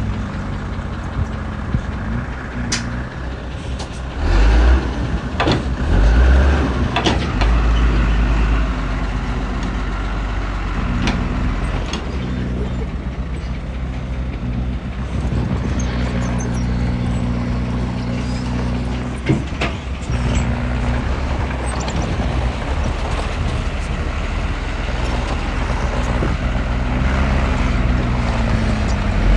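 Heavy diesel engine of earthmoving machinery running steadily, with deep surges of power a few seconds in and scattered sharp metallic clanks.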